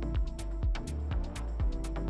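Background music with a steady, quick beat of deep kick drums and ticking hi-hats.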